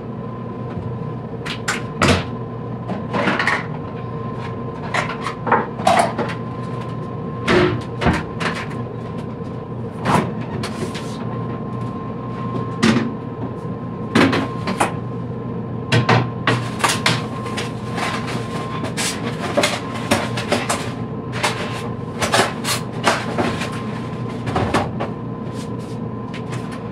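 Kitchen clatter of cupboards, dishes and utensils being handled: many sharp clicks and knocks, irregular and spread throughout, over a steady hum.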